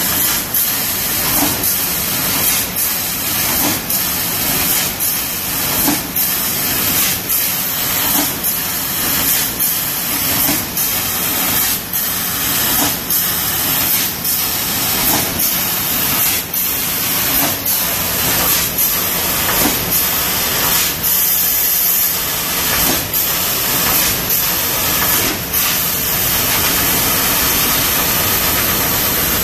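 Sheet-metal laser cutter cutting 2 mm aluminium: a loud, steady hiss of the gas jet from the cutting head, broken by short dips and clicks roughly once a second as the head stops and starts between cut-outs. Near the end the hiss runs unbroken for several seconds.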